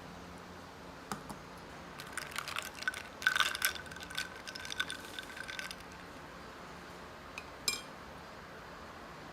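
Glassware and dishes clinking and rattling for a few seconds, then a single ringing clink near the end.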